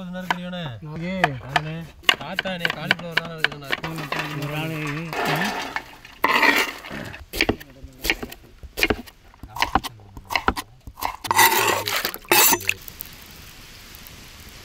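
A person's voice for about the first five seconds, then a knife cutting a potato on a cutting board: a run of quick knocks and scraping that stops about thirteen seconds in.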